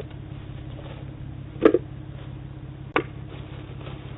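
Steady low hum on a doorbell camera's recording, with two sharp knocks, the first louder, about one and a half and three seconds in.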